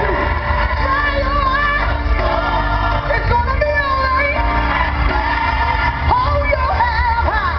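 Live gospel song: a woman singing with sliding, held notes over a band with a heavy, steady bass.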